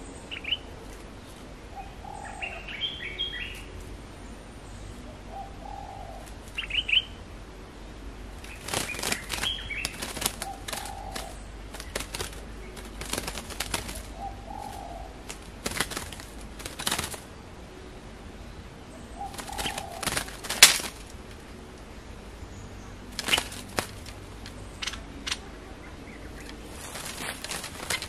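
Short bulbul calls, high chirps and lower notes, then from about eight seconds in, a bird's wings flapping in sharp flurries again and again: a bird fluttering in a cage trap after being caught.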